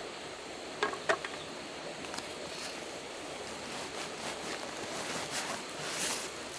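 Clothes and a canvas backpack being handled: fabric rustling as a denim jacket is stuffed into the pack, with two sharp clicks about a second in, and the crinkle of a paper bag being pulled out near the end.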